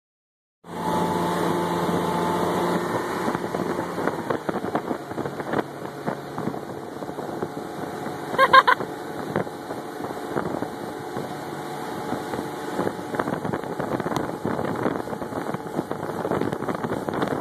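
Tow boat's engine running under way, with water rushing in the wake and wind buffeting the phone's microphone. About eight and a half seconds in, a brief high-pitched call rises above it as the loudest moment.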